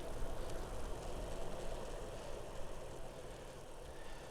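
Wind rushing over the microphone and tyres running on a wet road as a bicycle rolls downhill, a steady rumble and hiss that fades as the bike slows.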